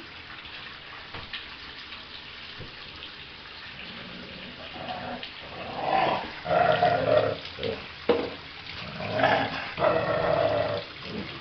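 Rhodesian Ridgeback puppy in a bathtub making a run of short, loud grumbling vocalizations over the second half, about six in a row, each up to a second long. A steady hiss of running water sits under the first half.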